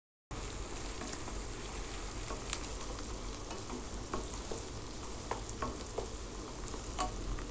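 Chopped small onions, curry leaves and green chillies sizzling in hot sesame oil in a steel kadai as a wooden spatula stirs them, with scattered small ticks and scrapes. The sizzle cuts in a moment after the start.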